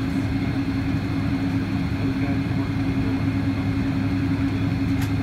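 Steady cabin drone of a Boeing 777-200 taxiing, heard from inside the cabin, with a steady low hum running through it. A short click comes near the end.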